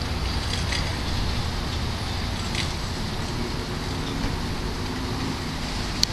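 Steady low outdoor rumble and hiss, with a single sharp click near the end.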